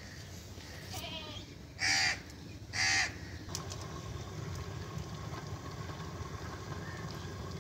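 A crow cawing: a faint call about a second in, then two short loud caws about a second apart, over a low steady rumble.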